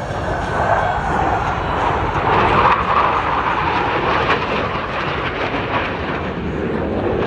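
Military aircraft flying past, its engine noise building to a peak about three seconds in and then easing off as the pitch drops.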